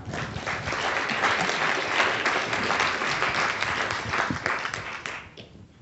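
Audience applauding at the close of a talk, a dense patter of many hands clapping that dies away about five seconds in.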